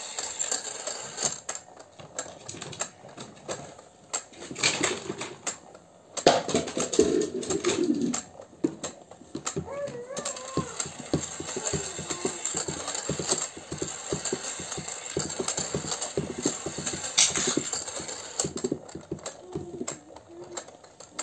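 Small puppies' claws clicking and scrabbling on hard stairs: rapid, irregular tapping.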